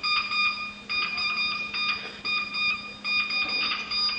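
An electronic alarm beeping at one steady high pitch, in runs of rapid beeps with a short break about once a second.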